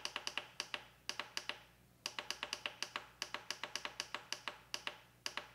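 Ninja Foodi control panel keyed repeatedly as the pressure-cook time is stepped up, giving a fast, even run of short beeps with two brief pauses in the first two seconds.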